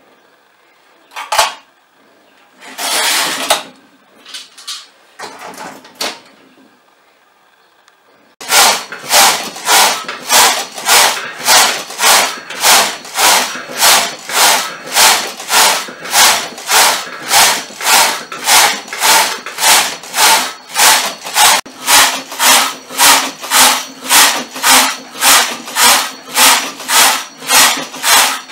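Domestic flatbed knitting machine: the carriage is pushed back and forth across the needle bed, a rasping clatter on each pass at about two passes a second. This starts about eight seconds in, after a few scattered handling knocks and scrapes.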